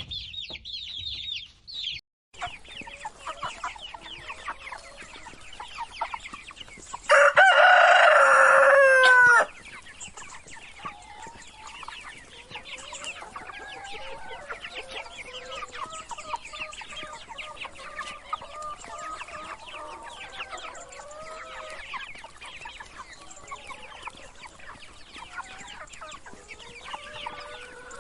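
Chicks peeping constantly alongside chickens clucking. A rooster crows once, loudly, about seven seconds in.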